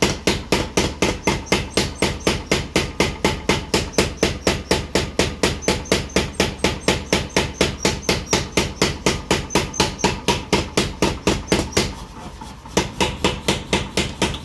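15 kg mechanical power hammer running and striking in a fast, even rhythm of about four to five blows a second, over a steady low hum from its motor. The blows stop for under a second near the end, then start again.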